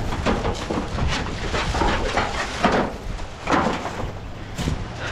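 Crunching and rustling in dry leaf litter and pine straw as corrugated metal sheets are handled, in an uneven run of short crunches, with two sharper ones about two and a half and three and a half seconds in.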